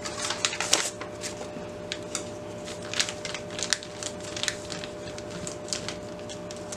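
Sheet of paper crackling and rustling with many small irregular crackles as it is pressed by hand and rolled with a hand roller onto a painted book page.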